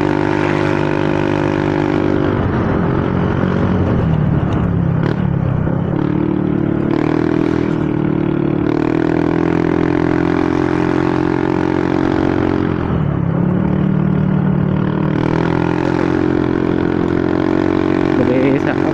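Motorcycle engine running under way with a steady note that falls in pitch twice, about two seconds in and past the middle, and climbs back each time a few seconds later.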